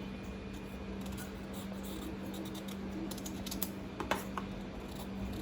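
Faint scraping strokes of a vegetable peeler on the skin of a bottle gourd, with a few light clicks, over a steady low hum.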